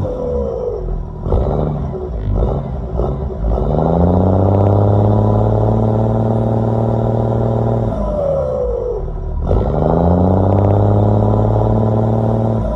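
Turbocharged Cummins diesel engine being revved: a few short blips, then two long revs, each held for several seconds. As the revs drop each time, the turbo whistle glides down in pitch.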